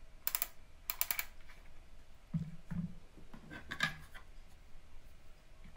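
Quiet ratchet clicking of a Holga pinhole camera's film-advance wheel: two quick clusters of clicks in the first second or so. Then come a few soft knocks of the camera's plastic back plate being handled.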